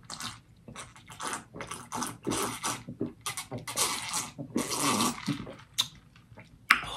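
Close-miked gulping and swallowing of a drink from a plastic cup, a quick run of wet gulps at about two a second, followed near the end by a sharp click.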